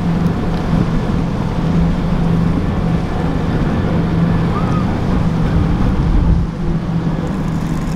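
Motorboat engine running with a steady low drone, with wind buffeting the microphone.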